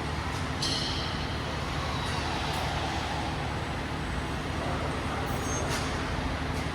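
Car engine idling steadily, with a few brief high-pitched clinks over it.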